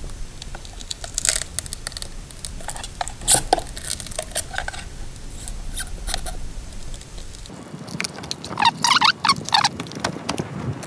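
Spackling knife prying a glued-on bracket strip away from a drywall wall, with scattered clicks and scrapes. Near the end comes a denser run of cracking and scraping as the glue lets go and the strip pulls off, taking some paint and wall surface with it.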